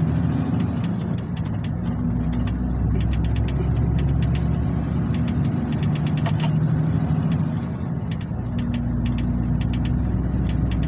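MAN diesel truck running along the road, heard from inside the cab: a steady low engine drone with road noise and scattered light clicks and rattles.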